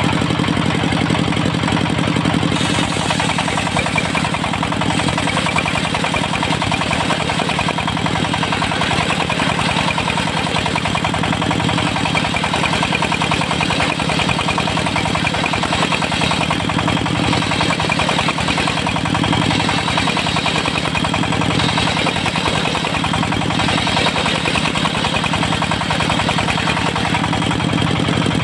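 Diesel engine of a mobile circular sawmill running steadily, with the saw's higher noise shifting now and then above the engine note.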